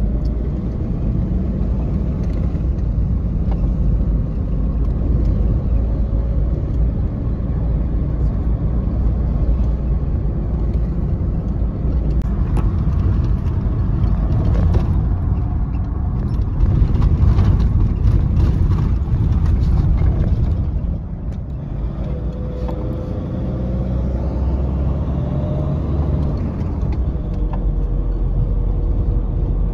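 Inside a moving vehicle's cabin: a steady low engine and road rumble, with a run of rattles and knocks through the middle that eases off a little about two-thirds of the way in.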